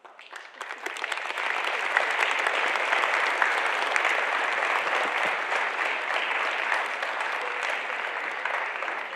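Audience applauding, building up over the first second, holding steady and easing a little near the end.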